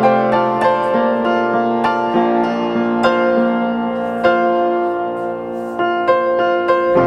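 Background music led by piano, a steady run of sustained notes with a new bass note near the end.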